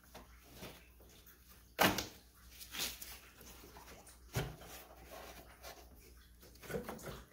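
A few sharp knocks and clunks from a screwdriver and gloved hands working the upper radiator hose and its clamp loose at the radiator. The loudest comes about two seconds in, another about four and a half seconds in, with smaller ones between and near the end.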